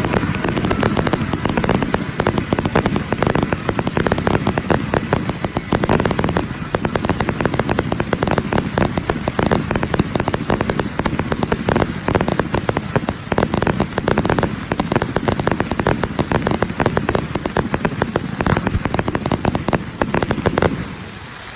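Aerial fireworks going off in a dense barrage: rapid overlapping bangs and crackling, one after another without a break, until they die down near the end.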